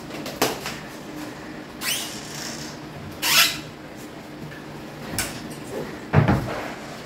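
Kitchen handling sounds: about five separate knocks and scrapes of utensils and containers, over a faint steady hum. The longest is a scrape about three seconds in, and the loudest is a heavy thump near the end.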